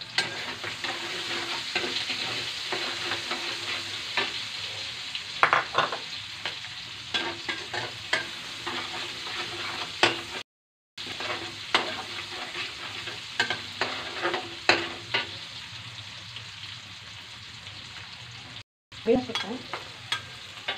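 Chopped shallots and garlic sizzling in hot oil in a stainless steel wok, stirred with a spatula that scrapes and clicks against the pan. The sound cuts out completely for a moment twice.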